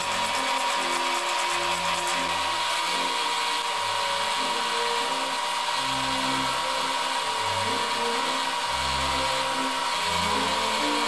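Drill press running a small abrasive wheel, with a steady grinding hiss as a metal plate from an old level is held against it to clean off rust.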